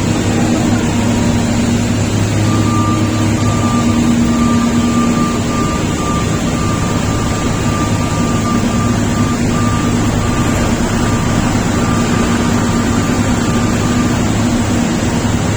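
Shantui SD32 crawler bulldozer's diesel engine running steadily, with a thin high whine that comes in about two and a half seconds in and holds to near the end.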